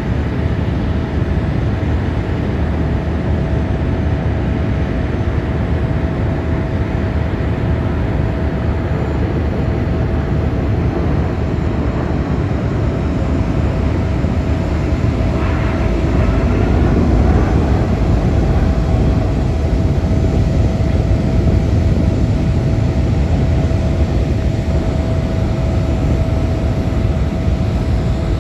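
Airbus A350-1000 jet airliner flying past during a display, its Rolls-Royce Trent XWB turbofans making a steady deep rumble that swells a little about two-thirds of the way through.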